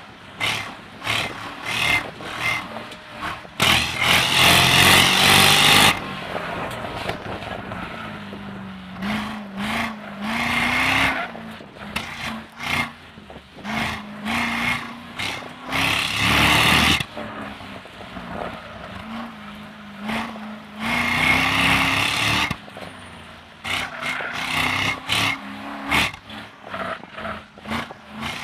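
2005 Corvette Z51's LS2 V8 under hard driving, its pitch rising and falling again and again as the throttle is applied and lifted between cones. Loud surges of wind rush over the open cockpit come every few seconds.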